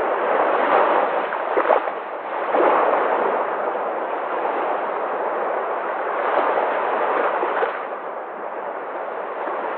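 Sea surf: waves breaking and washing in a steady rush, swelling louder about two seconds in and again near seven seconds.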